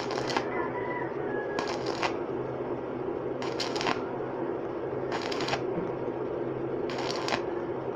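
Stick arc welding on stainless-steel tubing: a steady crackle and sizzle of the arc, flaring into louder hissing bursts about every one and a half to two seconds, over a faint steady low hum.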